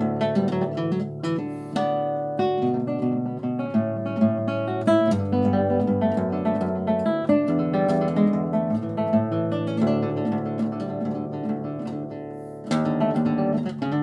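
Classical guitar played fingerstyle: a flowing stream of plucked melody notes over a bass line. It thins and softens for a couple of seconds, then a loud chord is struck about a second before the end.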